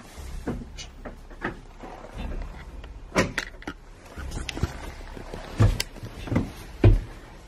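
Irregular knocks and thumps from footsteps and the camera being handled, about half a dozen, the loudest two a second or so before the end, over a low rumble of handling noise.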